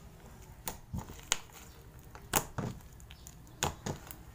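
Homemade green slime with small white cubes being kneaded and stretched by hand, giving off short wet pops and clicks about every half second to second.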